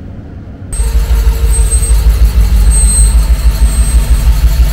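Ambulance engine idling, a loud, steady low rumble heard close to the front of the truck; it comes in abruptly just under a second in.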